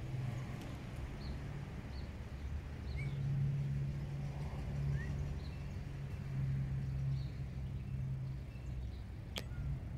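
A steady low hum that shifts in pitch every few seconds, with small high bird chirps scattered over it. There is one sharp click about nine seconds in.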